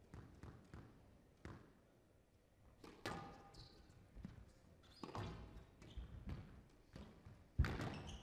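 Squash rally: the ball is struck by rackets and hits the walls in sharp, irregularly spaced cracks, with short squeaks of court shoes on the floor. The loudest hit comes near the end.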